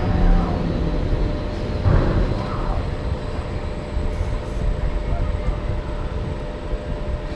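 Low, steady rumble of a ghost-train dark-ride carriage in motion, with brief louder swells just after the start and about two seconds in.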